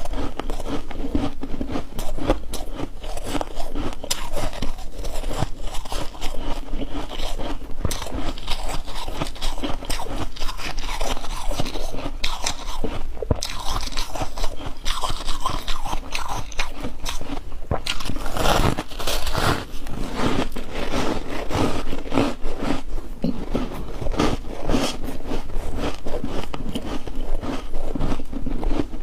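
Chunks of ice being bitten and chewed: dense, continuous crunching and cracking.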